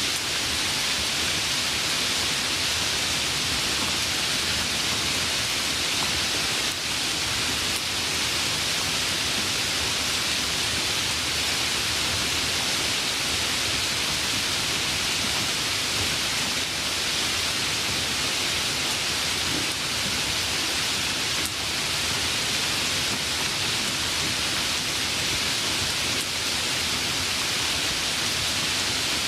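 Steady, even downpour of rain, a constant hiss with no let-up.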